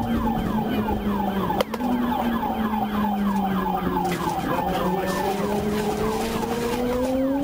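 Police siren in a fast yelp, its pitch sweeping down about four times a second, over an engine whose note holds steady and then climbs from about four seconds in as the patrol car accelerates. A sharp click sounds about a second and a half in.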